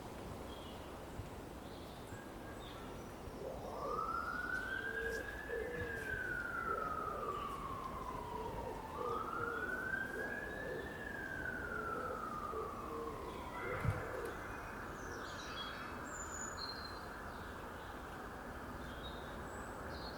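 Distant emergency-vehicle siren wailing in two slow rises and falls, then holding one steady tone, over faint background hum. Birds chirp now and then, and there is a single short thump partway through.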